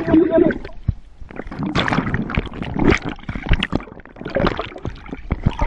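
Water churning and gurgling around a camera held just under the sea surface, with irregular splashes and sharp knocks.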